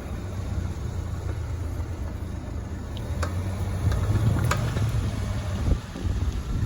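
Car running through a right turn: a steady low rumble with a few sharp clicks about halfway through. This is the abnormal noise the owner hears when turning right.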